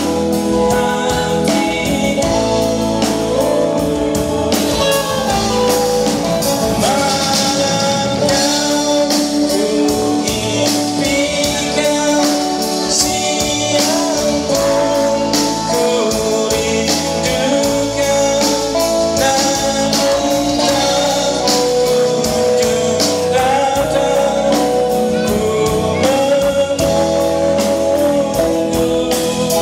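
A band playing a song, with a lead singer's voice over the instruments and a steady beat.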